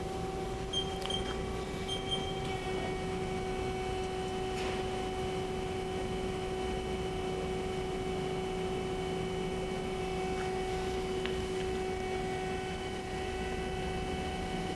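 Haas SL-40 CNC lathe running with a steady hum as its tailstock is operated. Three short high beeps sound in the first couple of seconds.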